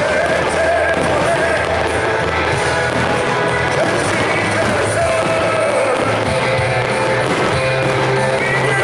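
Rock music with a singing voice, playing steadily at a constant loud level.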